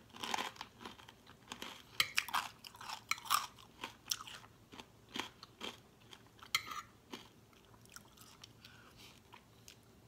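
Close chewing and crunching of a mouthful of vegetable-heavy som tam salad: irregular crisp crunches, thickest in the first seven seconds and thinning out after.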